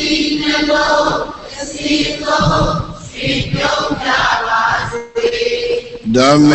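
Many voices chanting together in unison, a Buddhist recitation. About six seconds in, a single close-miked male voice takes up a steady, drawn-out chant.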